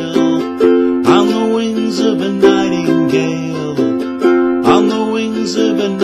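Ukulele strummed in a steady rhythm, chords sounding with a sharp attack on each strum about twice a second.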